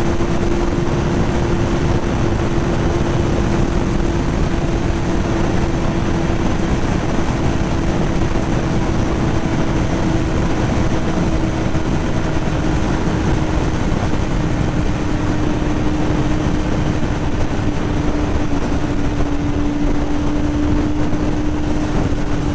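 2005 Yamaha YZF-R6's 600 cc inline-four engine running steadily in fourth gear at freeway speed, its pitch easing slowly down, under heavy rushing wind noise.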